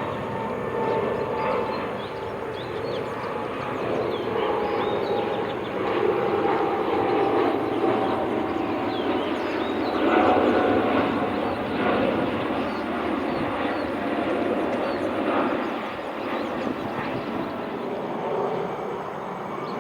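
Jet airliner's engines roaring on takeoff, swelling to a peak about halfway through, with a faint whine that slowly falls in pitch.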